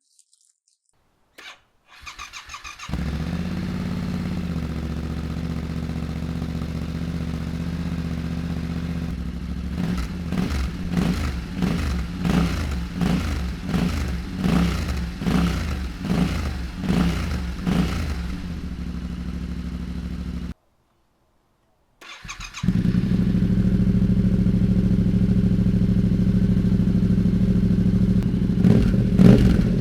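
Yamaha Ténéré 700's 689 cc parallel-twin engine starting and settling into a steady idle, then blipped repeatedly, about one rev a second. After a sudden cut it idles again, louder, with more revs near the end.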